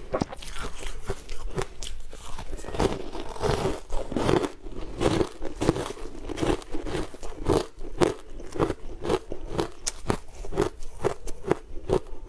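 Close-miked crunching and chewing of a frozen, green-powder-coated chunk of food: a steady run of sharp crunches, several a second.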